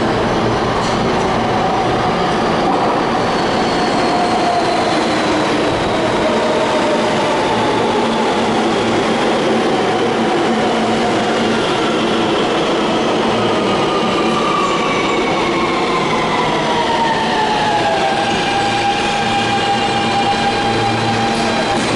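New York City subway train pulling into the station and braking, with steady wheel and car noise. Its electric motor whine falls slowly in pitch over about fifteen seconds and then holds on one note as the train nears a stop.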